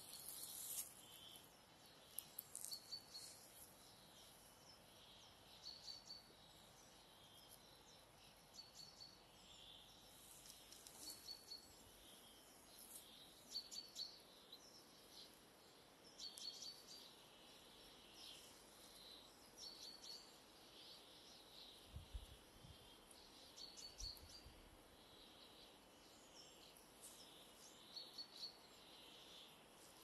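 Faint woodland songbirds calling, short high chirps and phrases repeating every second or two over a quiet background hiss.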